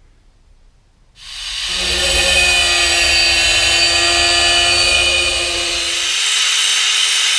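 Angle grinder starting up about a second in and cutting sheet steel, a loud steady whine over a hiss; the lower hum drops out about six seconds in.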